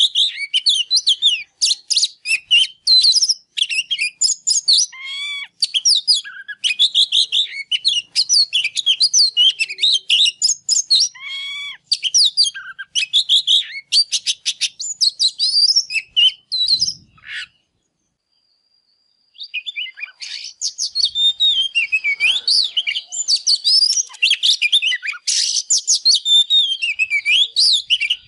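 Male oriental magpie-robin singing a fast, varied song of loud whistles, trills and chattering notes. The song breaks off for about two seconds past the middle, then starts again.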